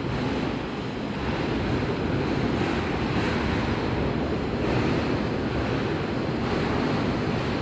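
SMIT GS900 rapier weaving loom running at speed: a steady, dense mechanical clatter.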